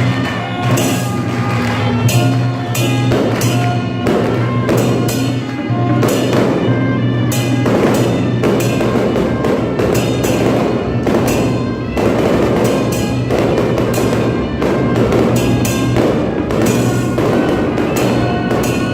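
Loud Taiwanese temple procession music: drums and cymbals struck in a fast, continuous rhythm under a held melody line.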